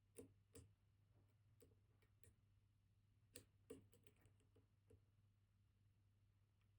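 Faint, scattered clicks and ticks of a dimple-lock pick probing and setting the pins of a MIWA JN high-pin-count dimple lock held under tension, with two sharper clicks a little after three seconds in. A low steady hum runs underneath.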